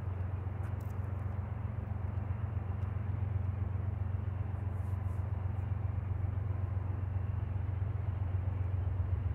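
Diesel locomotives of an approaching Norfolk Southern freight train, heard from a distance: a steady low engine rumble that slowly grows louder.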